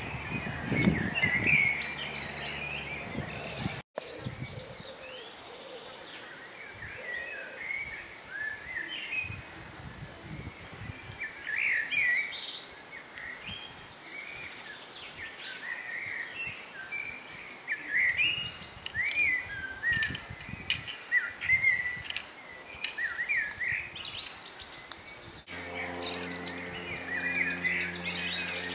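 Garden birds singing: a continuous run of quick chirps and warbled phrases. Near the end, several low steady tones come in beneath them.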